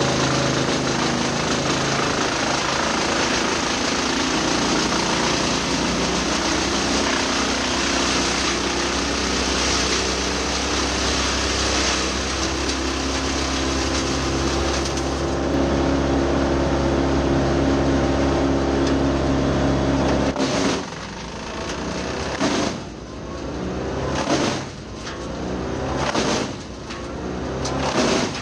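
Tractor-driven Badger 8 PTOXL PTO wood chipper running and chipping eucalyptus: a loud, dense din with the tractor engine's note beneath it. About two-thirds of the way through the sound drops suddenly, then dips and builds back up several times, roughly every two seconds.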